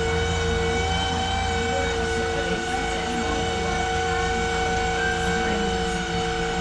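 Glass-bottom tour boat's motor running steadily under way: a low rumble with a constant whine.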